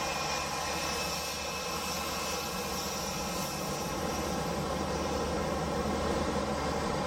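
Boeing 787-8's Rolls-Royce Trent 1000 jet engines running steadily at low power as the airliner taxis close past, a high whine over a low rumbling hum.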